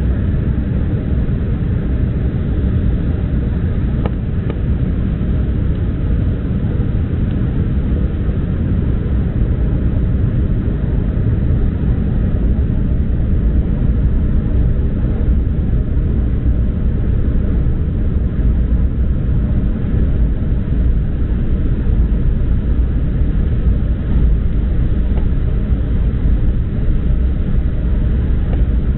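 Steady low cabin rumble inside an Embraer 175 airliner in flight: the noise of its twin GE CF34 turbofans and the airflow over the fuselage, with no distinct events.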